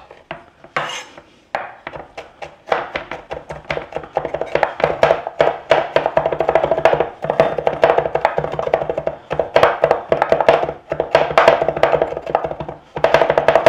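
Santoku knife mincing garlic on a wooden cutting board: a few scattered chops at first, then from about three seconds in a fast, continuous rhythmic clatter of blade strikes on the wood.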